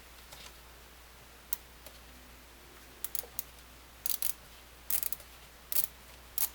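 Light, irregular metal clicks and taps from tools and small parts being handled during disassembly of a Singer 306K sewing machine's needle thread tension device. The clicks are scattered, some coming in quick pairs or clusters.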